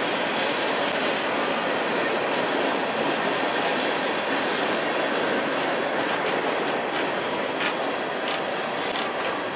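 Freight cars of a manifest train (covered hoppers, a flatcar and tank cars) rolling past with a steady rumble of wheels on rail. Sharp wheel clicks come irregularly through the second half.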